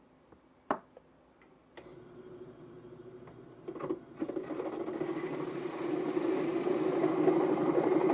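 A sharp click, then a handheld electric power tool running steadily for about six seconds, growing louder as it bites into the work, and cutting off suddenly near the end.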